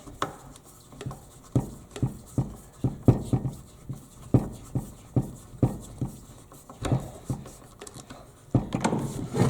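Screwdriver tightening a screw into a circular saw's plastic housing: a series of uneven clicks and knocks, about two a second.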